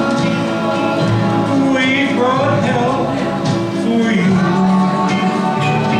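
A man singing a slow ballad into a microphone over recorded backing music with backing vocals.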